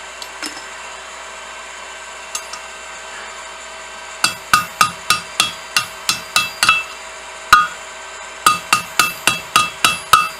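Hand hammer striking hot 1/4 inch round steel stock on an anvil, each blow ringing briefly. After a few light taps, the blows come in two steady runs of about four a second, with a pause and a single lone blow between them.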